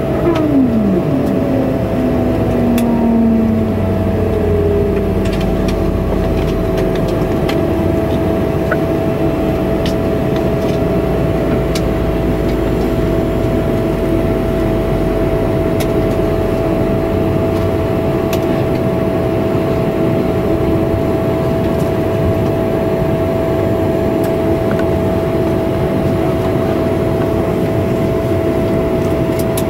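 Cabin sound of a Bombardier CRJ-200 taxiing on its rear-mounted GE CF34 turbofans at idle: a steady jet whine over a rumble. At the very start several pitches slide downward as power comes back, and the deep rumble fades a little past halfway.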